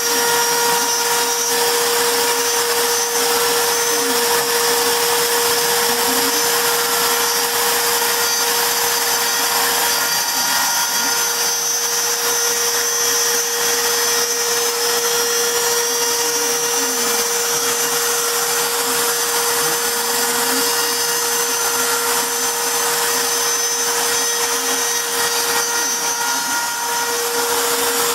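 CNC router spindle running steadily as it engraves wood, a constant whine over dense machine noise, with faint brief rising and falling tones underneath every few seconds.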